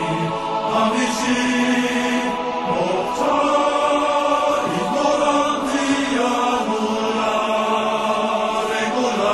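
Background music of slow chanting voices, long held notes that shift every two or three seconds.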